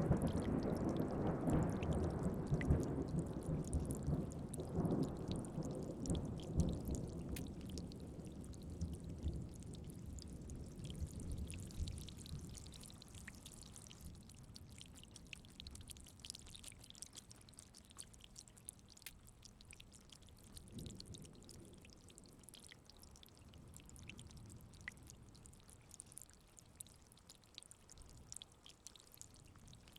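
Thunder rumbling and dying away over the first ten seconds, under steady rain with scattered drips. A fainter low roll of distant thunder comes about twenty seconds in.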